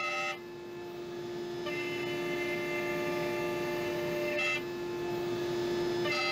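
Router motor running steadily at high speed while cutting wood, with a constant whine and higher tones that shift abruptly every second or two as the cut changes.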